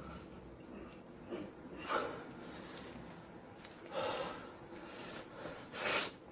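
A man's breaths out, three of them about two seconds apart, one with each pull of a resistance band; the last is the loudest.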